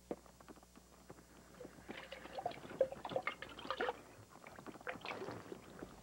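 Faint pouring and gulping of a drink, with a string of short glugs and swallows about two to four seconds in.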